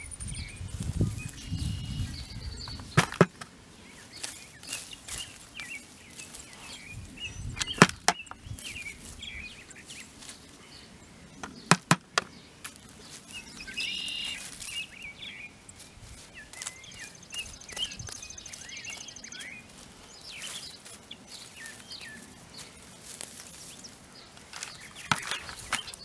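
A small hand cultivator scratching and digging in mulched soil to pull out weeds and root mats, with a few sharp knocks spread through it. Birds chirp faintly in the background.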